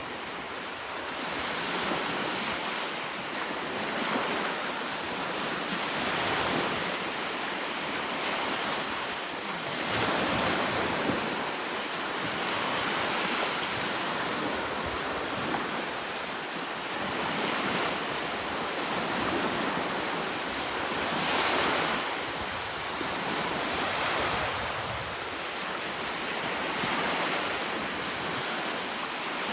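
Sea waves washing onto a shore, a steady hiss of surf that swells and eases every three to four seconds, with some wind noise.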